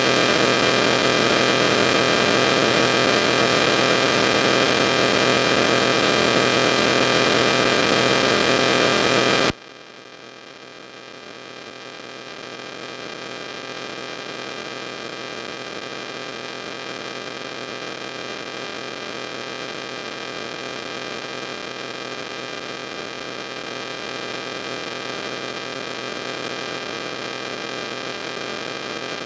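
Steady electrical hum and hiss with several fixed whining tones, with no speech. About a third of the way in it drops suddenly to a much lower level, then slowly grows a little louder.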